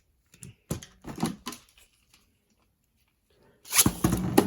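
A few light plastic clicks of Beyblade tops being handled and fitted to their launchers, then a short pause. About three and a half seconds in, a sudden loud launch as the tops are ripped into the stadium and start spinning and clattering against its plastic floor.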